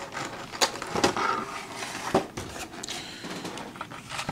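Clear plastic packaging of a trading-card collection box being handled: a few sharp clicks and knocks over light rustling of plastic.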